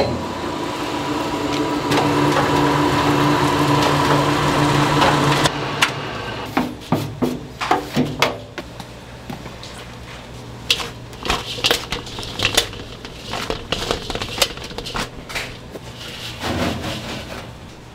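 Stainless-steel roller mill grinding soaked rice into flour, a loud steady machine hum. After about five seconds it drops to a quieter hum, with scattered knocks and scrapes as the flour is scraped from the steel chute into a steel basin.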